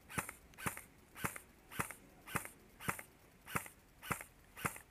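Airsoft rifle firing steady semi-automatic shots, about two a second, each a sharp snap followed by a softer click.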